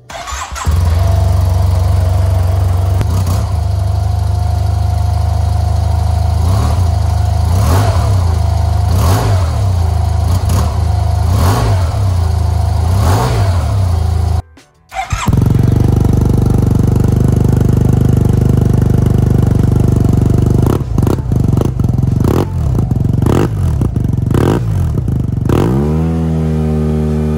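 Yamaha TMAX 530's parallel-twin engine running through a Termignoni full exhaust, a loud, steady drone. There is a brief break about halfway, and near the end the pitch falls as the revs drop.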